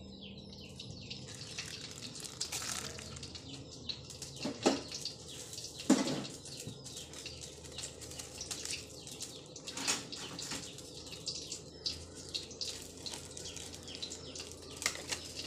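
Cooking oil heating in a wok on a gas burner, with a steady light crackle of many small pops, broken by a few louder knocks.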